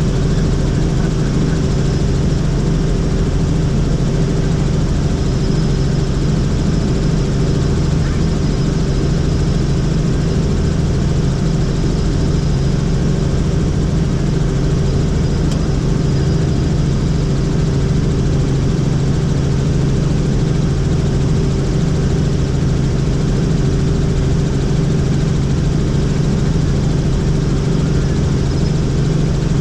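Helicopter in flight: the steady, loud drone of its engine and rotors, with a constant low hum.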